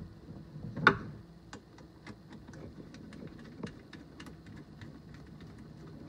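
A single sharp click about a second in, then a run of faint, irregular small ticks as a screwdriver turns the terminal set screw on a twist-lock plug, clamping the black wire.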